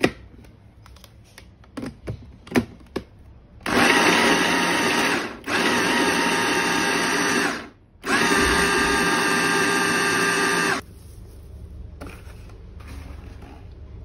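A few clicks and knocks as the chopper parts are fitted, then an electric hand blender runs on its chopper bowl attachment in three bursts of two to three seconds each, chopping the bowl's contents. The motor has a steady high whine and stops suddenly after each burst.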